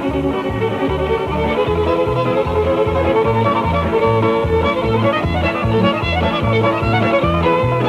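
Background music: a fiddle playing over a steady bass beat, in a country or bluegrass style.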